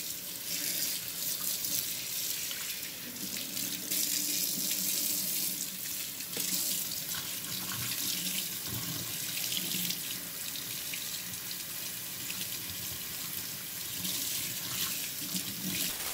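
Kitchen tap running into a stainless steel sink, a steady stream of water splashing as a paint brush is rinsed and worked by hand under it.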